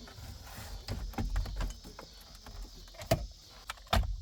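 Irregular clicks and knocks of hard plastic interior trim and parts being handled and worked loose as a car's dashboard area is taken apart, with a couple of louder knocks about three and four seconds in.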